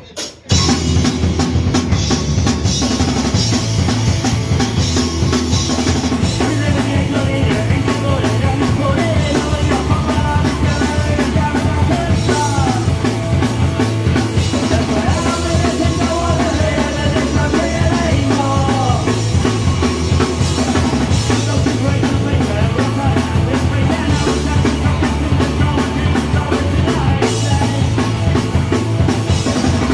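A live punk rock band of drums, bass and electric guitars comes in together about half a second in after a few sharp hits, then plays on loud and steady. A wavering melodic line rises above the band through the middle.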